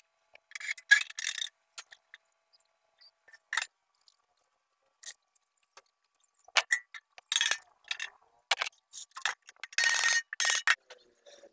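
Metal clinks and scrapes from a small steel-drum barbecue grill being handled, its lid and inner rods knocking and sliding. The sounds come in short, separate bursts with quiet gaps, and the longest scrape comes about ten seconds in.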